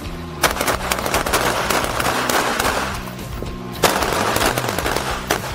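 C7 rifles firing 5.56 mm rounds: a sharp shot about half a second in starts a dense run of rapid shots, and another loud shot comes just before four seconds in. Background music plays underneath.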